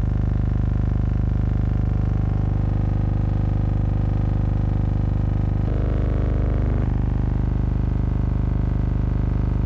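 A steady hum of several held, even tones, with no speech. The pitches shift abruptly a few times, at about two, six and seven seconds in.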